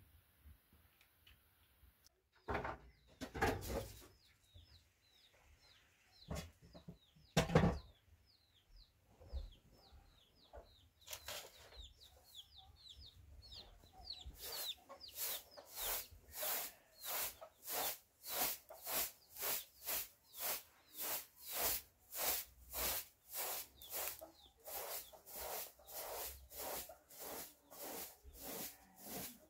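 Birds, chicken-like, cheeping rapidly in short high falling notes, with a few loud thuds among them. Then a steady rhythmic swishing or scraping, about three strokes every two seconds, takes over.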